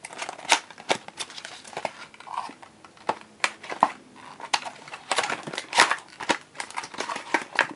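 A cardboard trading-card box being handled and pulled open: irregular clicks, taps and scrapes of cardboard, coming thick and fast about five to six seconds in.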